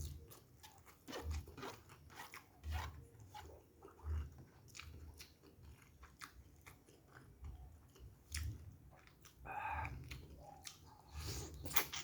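Close-miked chewing and biting of free-range chicken and noodles: wet mouth clicks and smacks, with a soft low thump about every one and a half seconds as the jaw works.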